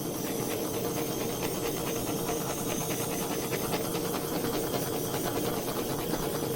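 Handheld torch flame burning with a steady hiss, lit suddenly at the start, played over wet acrylic pour paint to raise cells and pop bubbles.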